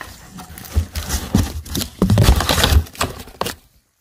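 Cardboard box holding a new catalytic converter being handled, with a run of knocks, scrapes and low thumps, loudest in the second half. It cuts to near silence for a moment just before the end.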